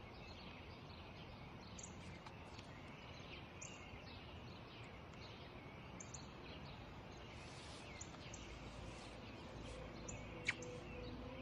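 Faint outdoor ambience of small birds chirping and twittering over a steady hiss, with one short sharp tick about ten and a half seconds in.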